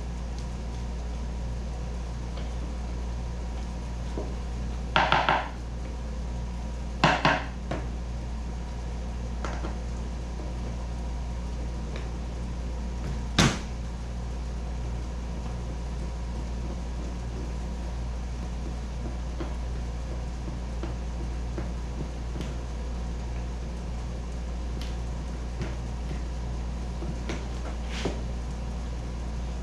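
Hand tools and hardware being handled while mounting kayak foot braces by hand: two short clatters about 5 and 7 seconds in, a single sharp knock about 13 seconds in and a few light ticks, over a steady low hum.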